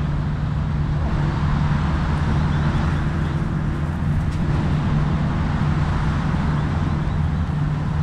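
Steady road-traffic noise with a continuous low engine-like hum underneath.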